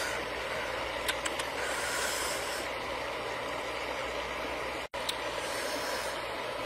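Steady rushing of a shallow river running over rocks, broken by a very short gap about five seconds in, with a few faint clicks about a second in.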